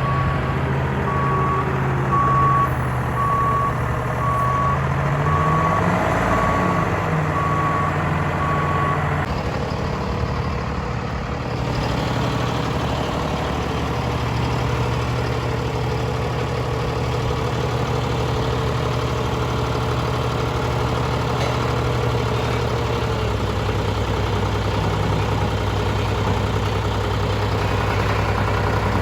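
A vehicle engine running, with a backup alarm beeping regularly for about the first nine seconds. The engine revs up briefly about six seconds in, then settles to a steady run.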